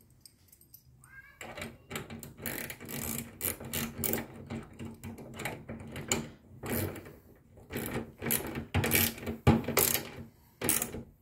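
Socket ratchet clicking in quick runs as it tightens the mounting bolt of a bonnet gas strut, with a brief rising squeak about a second in.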